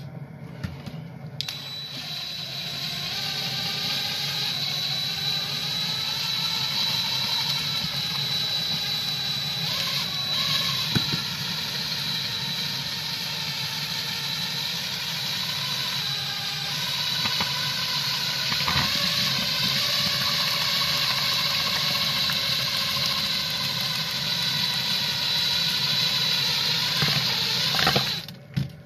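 DeWalt 20V cordless drill running steadily, spinning a mixing paddle through a kettle of hot scrapple mush. Its high motor whine starts about a second in, wavers a little in pitch, and stops just before the end.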